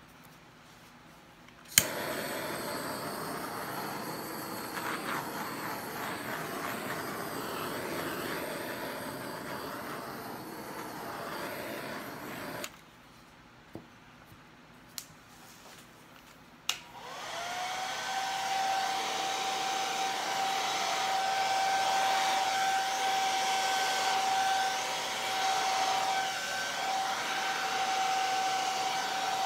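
A steady rush of blown air switches on with a click about two seconds in and cuts off about eleven seconds later. After a few clicks a hair dryer starts up, its motor whine rising to a steady pitch, and it blows steadily on high to the end, pushing wet acrylic paint across the canvas.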